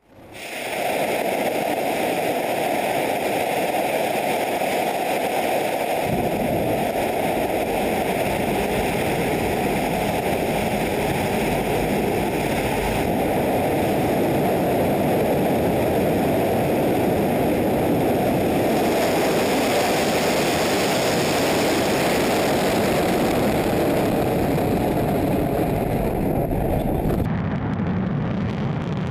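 Soyuz-2.1a rocket's kerosene-fuelled engines at full thrust during liftoff: a loud, steady rushing rumble that swells in within the first second. Its tone shifts a few times, the deep low end filling in about six seconds in.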